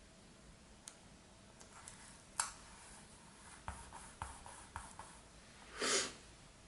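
Fingers pressing and rubbing a paper sticker onto a planner page: faint scattered taps and clicks, one sharper click a little over two seconds in, and a short brushing swish of hand on paper near the end.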